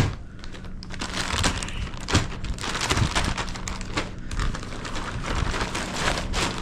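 Plastic packaging crinkling and rustling in irregular bursts as it is handled close to the microphone during unpacking.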